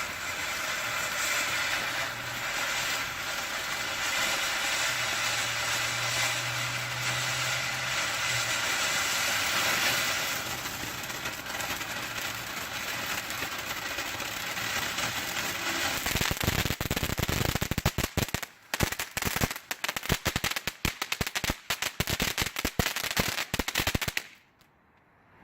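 Keg Party firework fountain from Brothers Fireworks spraying with a steady hissing rush. About two-thirds of the way through, it turns into rapid, irregular crackling pops. Near the end it cuts out short, which the owner calls a dud.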